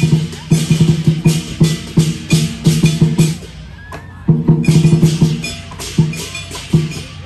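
Lion dance percussion: a big drum beaten in a quick rhythm with clashing cymbals. It drops away briefly about halfway through, then starts again.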